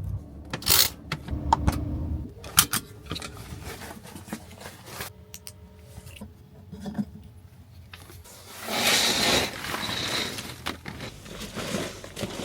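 Objects being handled and rummaged: a run of sharp clicks, knocks and scrapes, then a longer rasping noise about nine seconds in.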